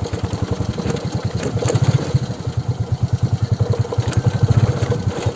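Motorcycle engine running at low, even revs with a steady throb.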